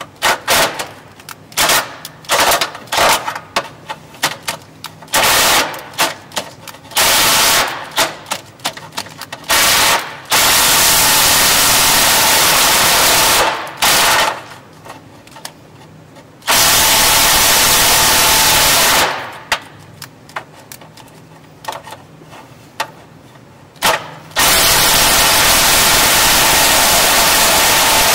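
Cordless drill with its bit working in a hole in a steel frame rail, enlarging it. It runs in many short bursts for the first ten seconds or so, then in longer runs of a few seconds each.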